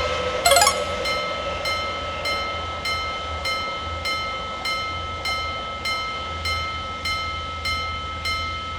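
Japanese level-crossing alarm ringing its steady electronic 'kan-kan' about twice a second while a train runs past with a low rumble. There is a brief louder burst about half a second in.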